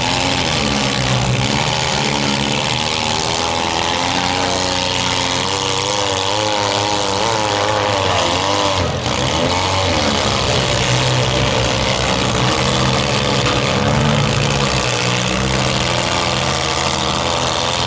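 Several demolition derby car engines running and revving at once, their pitches rising and falling in overlapping layers.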